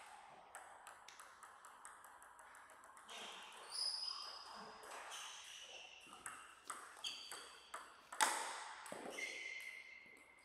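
Table tennis ball bounced several times in quick, even clicks before the serve, then a rally of sharp hits of the ball on rubber paddles and the table. A louder burst of sound comes a little after eight seconds, near the end of the point.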